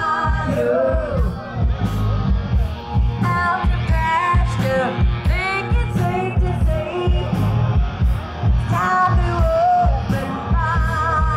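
Rock-and-roll band playing, a singer over guitar and a steady drum beat.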